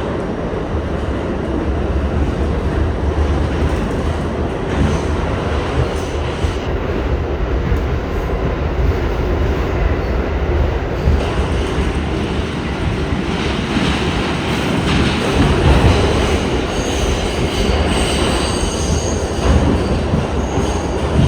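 R68 subway train running along the track: a steady loud rumble of wheels on rail and running gear, with a high thin wheel squeal coming in near the end.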